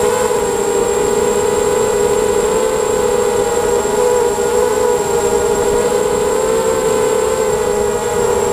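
ZMR250 mini quadcopter's brushless motors and propellers, heard from on board in flight: a steady, loud buzzing hum that wavers only slightly in pitch, with a thin high whine above it.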